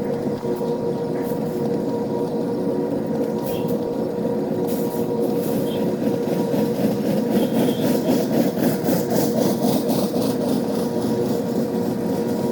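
Freight train rolling past: a steady rumble of cars on the rails, with a rhythmic clicking of wheels over rail joints that grows stronger about halfway through.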